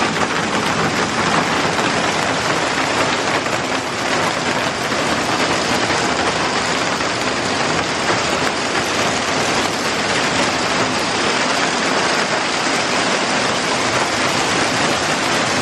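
Hail and heavy rain beating on translucent polycarbonate roof panels: a dense, steady, loud hiss with no letup.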